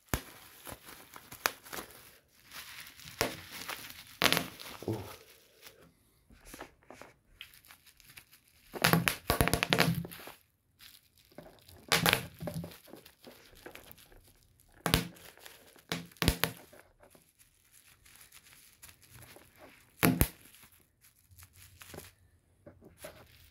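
Plastic bubble wrap being popped, sharp pops at irregular intervals over the crinkling of the sheet. A dense run of pops comes about nine seconds in, with single loud pops scattered after.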